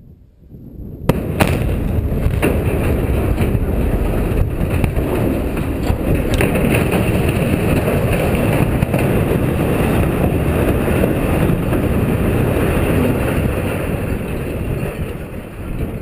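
Explosive charges going off in sharp cracks about a second in, with several more cracks over the next few seconds, as a 320-foot structural steel blast furnace is felled. A long, loud rumble follows as the steel structure topples and crashes to the ground, easing off near the end.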